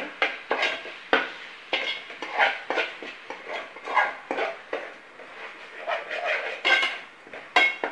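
A long metal spoon scraping and clinking against the sides and bottom of a metal cooking pot as thick tomato-onion masala is stirred, in irregular strokes with a brief metallic ring after some of them.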